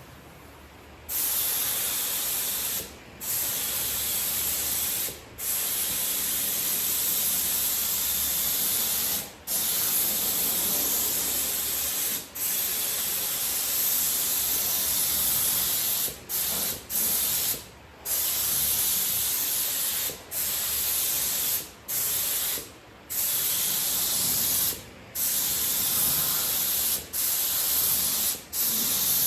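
Air spray gun spraying primer: a steady hiss in long passes, starting about a second in, with the trigger let off briefly a dozen or so times.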